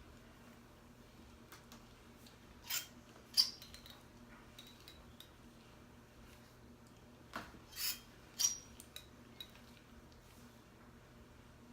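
A few light clicks and clinks from hair-styling tools being handled: two about three seconds in, then a small cluster about two-thirds of the way through.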